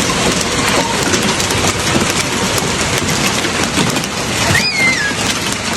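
Heavy hail and rain pelting down: a dense steady hiss dotted with many sharp clicks of stones striking hard surfaces. A brief wavering high squeal cuts through about five seconds in.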